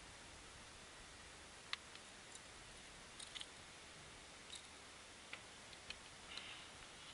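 Near silence: a faint steady hiss with scattered small clicks and taps from handling a just-landed black sea bream and its fish grip. The sharpest click comes about a second and a half in, and more follow through the second half.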